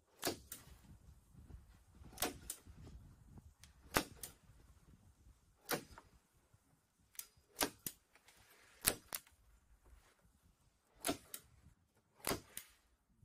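Hand staple gun firing staples through vapor-barrier membrane into a wooden panel: sharp snaps, often two in quick succession, repeating every second and a half to two seconds.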